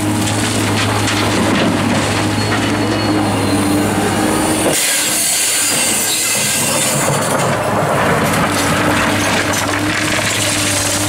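Liebherr R944 crawler excavator working, its diesel engine running steadily with a low hum while gravel spills from its bucket into a dump truck's steel bed. About halfway through the engine hum drops away for a few seconds under a harsh, high hiss, then comes back.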